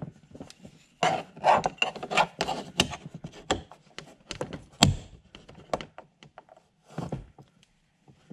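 Gloved hands handling an acrylic wind deflector panel and its mounting brackets while the knobs are snugged up: irregular rubbing, tapping and knocking, with one sharper knock about five seconds in.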